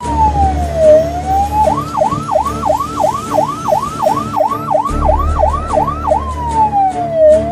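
Siren sound effect: a slow wail falling and rising in pitch, then a fast yelp of about three sweeps a second, then back to a slow falling wail, over a low steady rumble.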